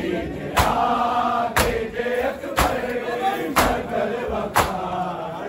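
A crowd of men chanting a noha together while beating their chests in matam. The hand slaps land in unison, a sharp strike about once a second, over the chanting voices.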